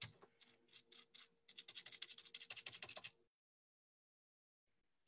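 Paintbrush dabbing and stroking paint onto bubble wrap: faint, quick scratchy strokes, several a second, that stop suddenly about three seconds in.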